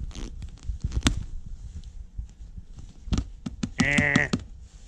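Small clicks and scrapes of pliers gripping and working a metal upholstery staple out of a seat backrest frame. Near the end comes a short strained vocal sound of effort.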